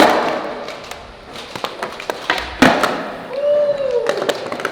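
Skateboard tricks on hard ground: a sharp board impact with a fading roll of the wheels, then a second heavy impact about two and a half seconds in, with small ticks scattered throughout. A brief rising-then-falling tone comes near the end.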